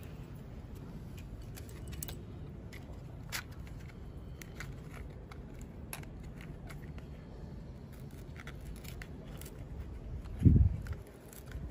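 Small clicks and scrapes of hands handling matchsticks, a matchbox and a bicycle valve on concrete, over a steady low rumble. One dull, loud thump about ten and a half seconds in.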